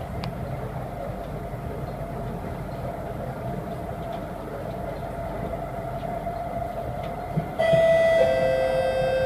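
SMRT C751B train running into the station, its steady rumble carrying a constant electric whine. About seven and a half seconds in, a louder two-note chime sounds and holds, the lower note entering just after the first: the onboard chime before the arrival announcement.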